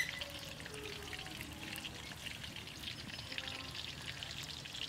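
Hot oil in a large iron kadai crackling and sizzling steadily as pieces of rabbit pakoda fry.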